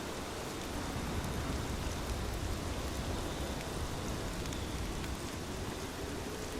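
Steady rainfall, a dense even hiss, with a low rumble that swells up about a second in and eases off again near five seconds.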